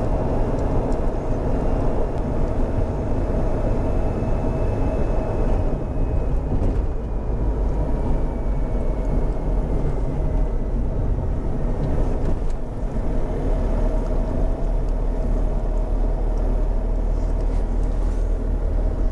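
Steady road and engine noise heard from inside a Mahindra XUV500 cruising on the highway. A faint tone falls slowly in pitch in the middle.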